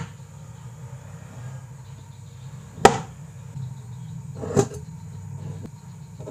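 Tools and wood being handled on a wooden workbench: a sharp knock about three seconds in and a softer one about a second and a half later, as a metal combination square and wooden block are set down for marking out, over a steady low hum.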